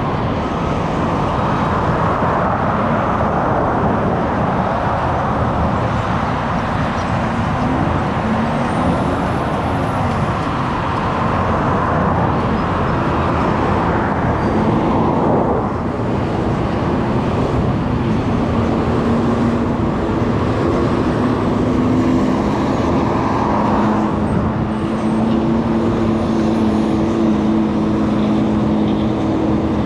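Road noise of a car being driven, with steady tyre and engine rumble. A passing vehicle's pitch rises and falls briefly about a third of the way in, and a steady engine hum comes in around the middle.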